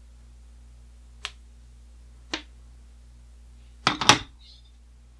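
Plastic toy sword creaking and clicking in the hand as it is turned: two sharp clicks about a second apart, then a louder double click about four seconds in, over a low steady hum.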